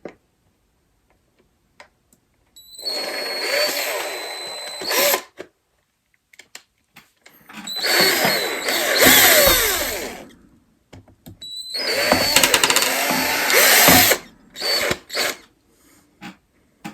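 Electric drill with a 3/16-inch bit run in three bursts of a few seconds each, its motor speed rising and falling, then two short blips, reaming out a freshly drilled hole to clean off its rough edges.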